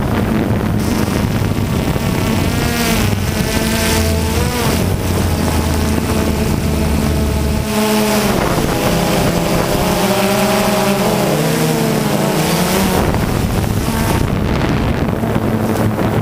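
Multirotor drone's electric motors and propellers buzzing in flight, several tones rising and falling together as the motors change speed while it manoeuvres, with wind noise on the microphone.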